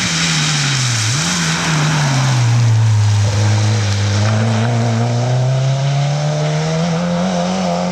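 Rally hatchback's engine on a wet tarmac stage. The revs fall with a quick throttle blip about a second in as it brakes for the bend, then climb slowly as it accelerates away. Tyre spray hisses off the wet road at first.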